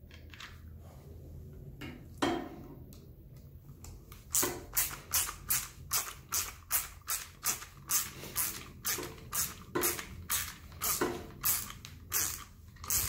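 Hand screwdriver driving tapping screws into a new, unthreaded plastic saw housing. The screws creak with each turn as they cut their own threads, in a steady rhythm of about two strokes a second from about four seconds in. A few handling clicks and a knock come first.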